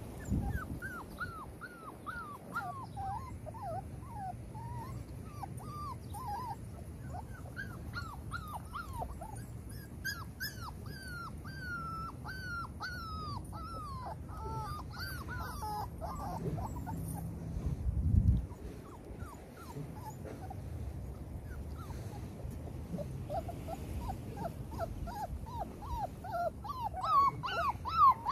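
Six-week-old XL pitbull puppies whimpering and whining: many short, high cries that fall in pitch, coming thick and fast, thinning out after the middle and picking up again near the end. A low wind rumble on the microphone lies underneath, with a brief louder burst about two-thirds of the way in.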